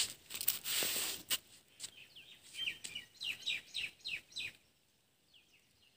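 A few crackling rustles, then a bird calling with a quick run of short, falling chirps.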